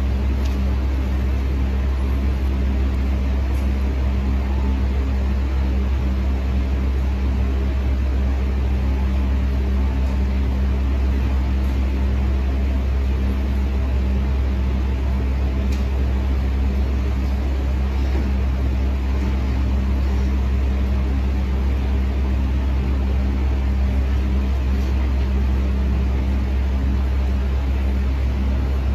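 A machine running with a steady low hum that does not change, with a faint tick or two.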